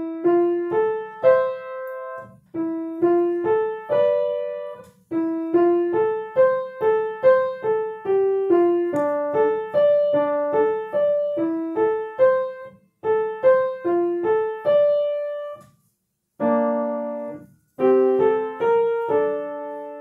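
Piano played by the right hand alone: an even line of single notes rising and falling in wave-like figures. Near the end it stops briefly twice, and a few notes are struck together.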